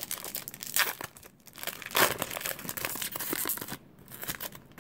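Foil wrapper of a 2017 Topps Series 2 baseball card pack being torn open and crinkled by hand: irregular crackling, loudest about two seconds in.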